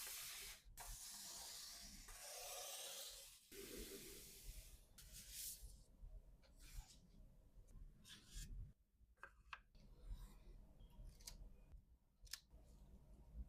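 Hands handling packaging while packing an order of press-on nails: soft rustling and rubbing for about the first five seconds, then scattered light taps and clicks.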